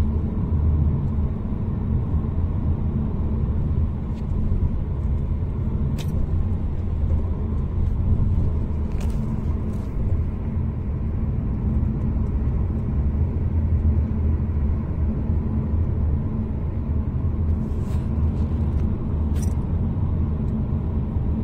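Steady low road and engine rumble inside the cabin of a moving Ford car, with a few faint ticks.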